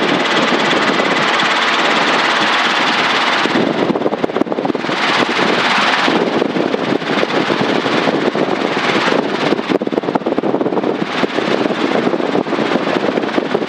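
Helicopter engine and rotor running steadily under power during a climb, heard inside the cabin, a little louder after about three and a half seconds.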